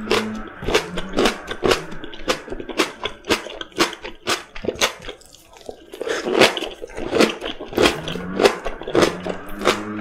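Close-up chewing of vegetables, a crisp crunch with each chew at about three a second. It pauses briefly around five seconds in, then a mouthful of raw bok choy leaves is crunched.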